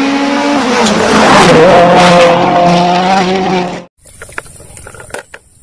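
Ford Fiesta WRC rally car engine at high revs, its note dropping about a second in and then holding steady. The engine sound cuts off suddenly near four seconds in, leaving faint clicks.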